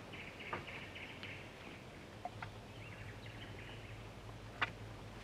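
Small birds twittering in two quick runs of chirps, over outdoor ambience. A few sharp clicks or taps, the loudest about four and a half seconds in, and a faint low hum coming in about halfway.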